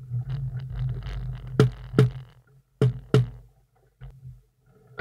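Wind buffeting the camera microphone: a low rumble that comes and goes, broken by two pairs of sharp knocks around the middle.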